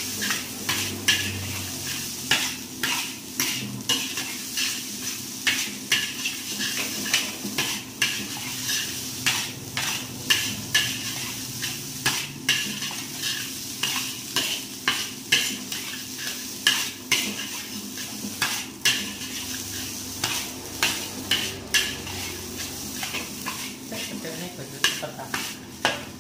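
Fried rice being stir-fried in a wok: a spatula strikes and scrapes the pan about once or twice a second over a steady sizzle.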